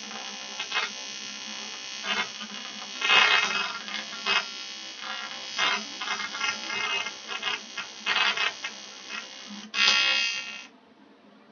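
AC TIG welding arc from an Eastwood TIG 200 at 140 amps, a steady buzz with irregular crackles and pops. The arc cuts off suddenly near the end.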